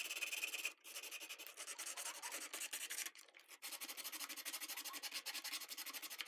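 80-grit sandpaper rubbed back and forth by hand in a square hole cut in a plastic shifter bezel, opening it out to final size for a rocker switch. Quick even strokes, several a second, with short pauses about a second in and again around three seconds in.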